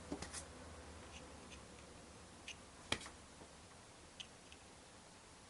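A few faint, irregularly spaced clicks and ticks, the sharpest about three seconds in, over quiet room tone: test leads and fingers handling the pins of a Ford turn signal relay, which does not click or flash when powered.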